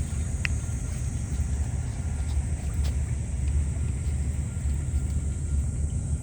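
Fishing boat's engine running at a steady pace: a continuous low rumble.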